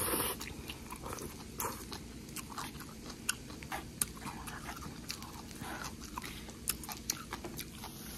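Close-up eating sounds: a short slurp of instant cup noodles at the start, then open-mouthed wet chewing with many small sharp smacks and clicks.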